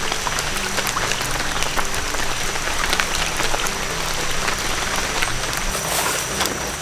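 Rain falling steadily: a dense, even patter of many small drop hits.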